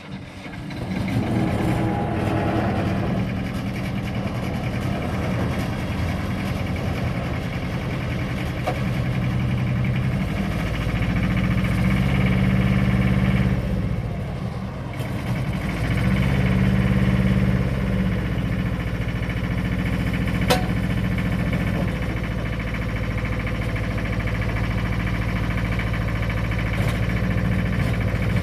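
Bobcat 533 skid steer's engine running steadily. Twice, for a few seconds each, the note grows heavier and louder, about a third of the way in and again past halfway.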